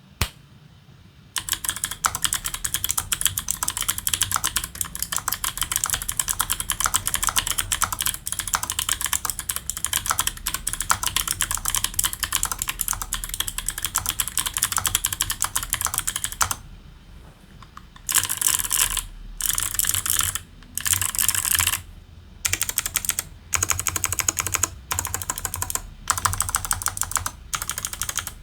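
Fast typing on a custom ergonomic mechanical keyboard with clicky Kailh Speed switches, a carbon-fibre plate and PBT keycaps: a rapid, continuous patter of key clicks. Near the middle it stops for about a second and a half, then comes back in short bursts with brief pauses between them.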